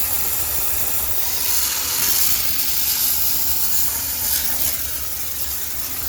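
High-pressure steam cleaner jetting steam with a loud, steady hiss over a low hum, sterilising a laundromat washing machine. The hiss eases slightly near the end.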